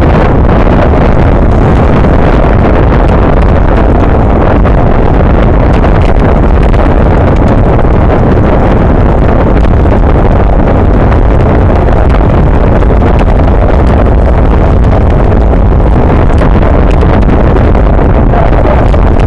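Loud, steady wind rush buffeting the microphone of a bicycle's front-mounted camera while riding at race speed in a pack.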